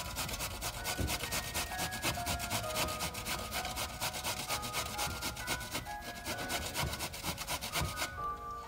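Raw pumpkin being grated on a stainless-steel box grater: a quick run of rasping strokes that stops near the end, with soft background music underneath.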